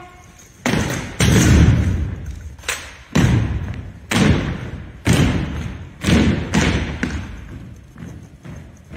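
Drill team's rifle drill in a gymnasium: a run of sharp, echoing thumps in unison, about one a second with some in quick pairs, from rifles and boots striking the wooden floor. The loudest comes about a second in.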